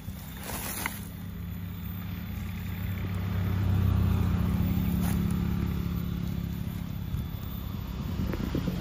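A motor vehicle's engine running, a low steady hum that grows louder to its peak about halfway through and then slowly fades.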